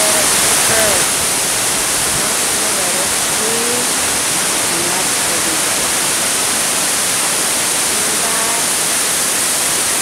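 Asik-Asik Falls, a wide curtain of many streams pouring down a cliff onto rocks and white-water rapids, making a steady, loud rush of falling water.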